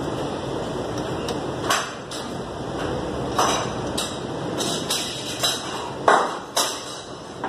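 About eight sharp metallic clicks and knocks as the metal parts of a computer embroidery machine's head mechanism are handled and fitted by hand, the loudest about six seconds in. A steady background hiss runs beneath them.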